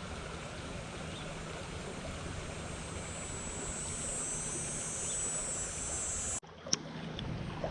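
Creek water running: a steady rushing hiss. It breaks off abruptly for a moment about six and a half seconds in, then resumes.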